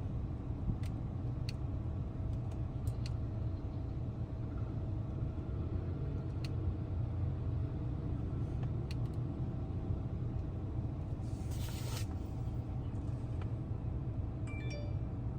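Steady low rumble of a running car, with a few faint clicks and a brief hiss about eleven seconds in.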